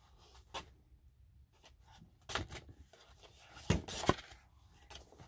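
Sheets of craft cardstock being handled and laid down one at a time: short paper rustles and taps, the loudest two close together about four seconds in.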